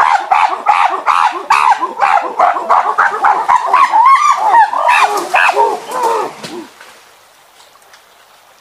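Macaque monkeys calling: a rapid, dense run of short calls, each rising and falling in pitch, several a second. The calls die away about six and a half seconds in, leaving only faint background.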